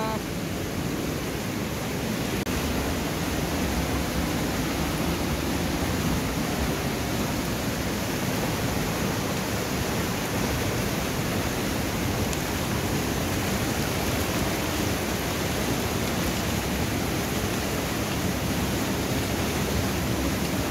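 Steady rush of fast-flowing river water, an even wash of sound with no breaks.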